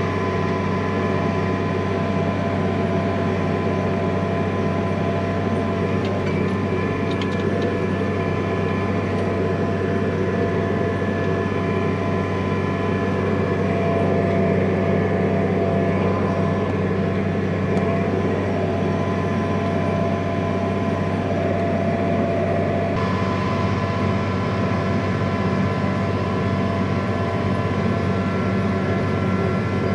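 Vehicle engine running at a steady speed: a constant low drone with a steady hum of higher tones over it, the higher tones shifting slightly about two-thirds of the way through.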